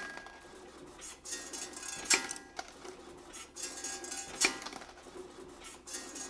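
CNC wire bending machine running through its forming cycle: continuous metallic clatter with a sharp metal clank about every two and a quarter seconds.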